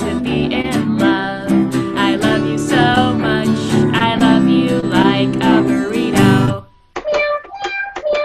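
Cello and acoustic guitar with women singing a bouncy pop song. About six and a half seconds in the music cuts off abruptly, and a few short, separate notes from a toy cat keyboard follow.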